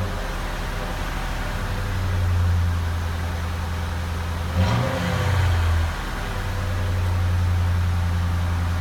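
A 2007 Ford Crown Victoria's 4.6-litre V8 running with a steady low hum that swells and eases, as when driving. A single sharp knock comes about halfway through.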